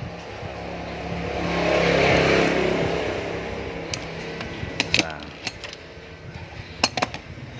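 A motor vehicle passing by, its noise swelling to a peak about two seconds in and then fading, over a steady low hum. A few sharp clicks come later.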